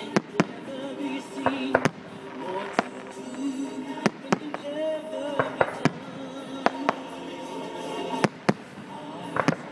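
Aerial firework shells bursting, a rapid series of sharp bangs, well over a dozen, coming every second or so with a quick cluster near the end. Music with held notes plays underneath.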